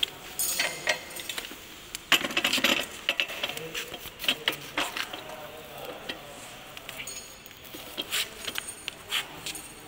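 Metal parts of a power weeder's handlebar and its toothed handle mount clinking and knocking as they are handled into place, with a cluster of louder knocks about two seconds in. Plastic bubble wrap crinkles near the start and again later.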